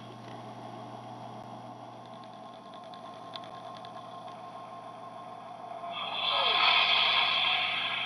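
Sci-fi starship sound effects from a model's electronic sound module, played through its small speaker: a steady low hum, then a whooshing swell with a short falling sweep about six seconds in.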